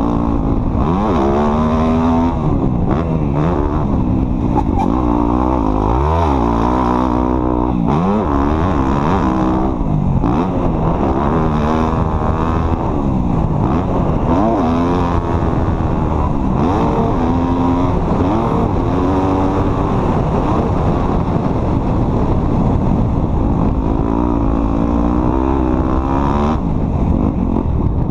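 Off-road vehicle engine running under load, its pitch rising and falling over and over as the throttle is opened and eased off, over a constant low rumble.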